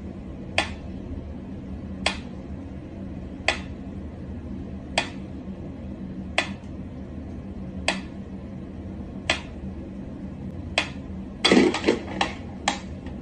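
Pyramid-shaped mechanical metronome ticking slowly and evenly, about one tick every second and a half. Near the end a louder thump and a quick run of knocks break in.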